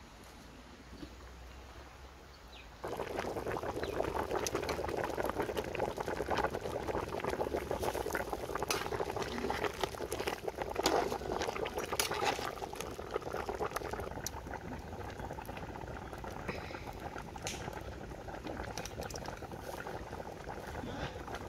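Pot of fish stew boiling hard, a dense bubbling and spluttering that starts abruptly about three seconds in. A ladle stirs it, with a few sharp clinks against the pot in the middle.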